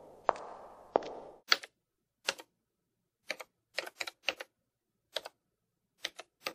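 Computer-keyboard typing sound effect: single keystrokes at an uneven pace, each a quick double click, about ten in all, keeping time with letters appearing on screen. It is preceded in the first second or so by three sharp hits over a short noisy rush.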